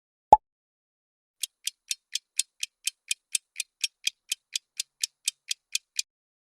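A single sharp pop, then a rapid, even ticking sound effect at about four ticks a second, like a fast clock or countdown timer, that stops suddenly after about twenty ticks.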